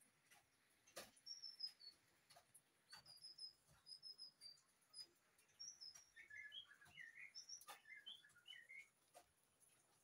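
White-rumped shamas calling faintly: a run of thin high notes, then lower warbling notes through the second half, with a few sharp clicks scattered through.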